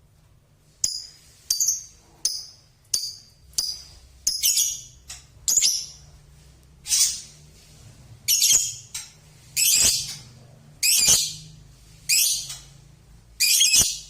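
Male lovebird giving its high-pitched chattering 'ngekek' song in a string of shrill bursts. The bursts come short and quick at first, about every two-thirds of a second, then run longer, about every second and a half.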